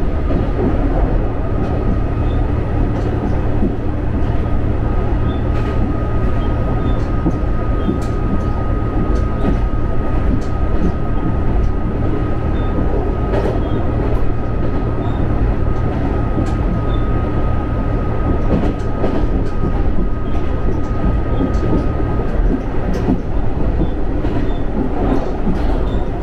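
Moka Railway diesel railcar running along the line, heard from inside the car: a steady low rumble of engine and wheels on rail, with scattered faint clicks over the rail joints. A thin steady whine runs under it and stops near the end.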